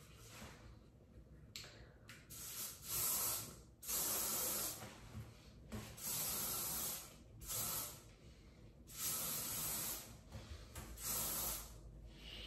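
L'Oréal Elnett Satin Extra Strong Hold aerosol hairspray being sprayed in repeated short bursts of hiss, each about a second long with brief pauses between.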